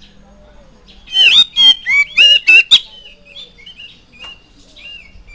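Oriental magpie-robin (kacer) singing. About a second in comes a quick run of loud, sharp notes that bend in pitch, followed by softer scattered notes.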